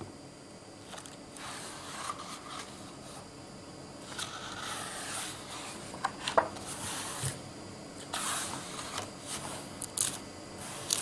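Rustling and scraping of stiff album pages handled and turned by hand, with a few sharp clicks, two of them close together about six seconds in.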